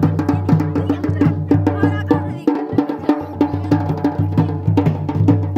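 Wedding procession music: a dhol drum beating a quick, steady rhythm under a sustained pitched melody, with a brief break in the low notes about halfway through.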